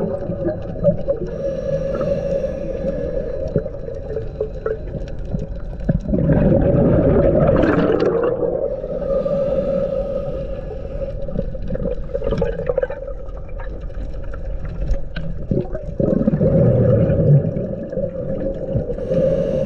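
Scuba diver breathing through a regulator underwater: two long exhalations of bubbles, about six and sixteen seconds in, over a steady hum.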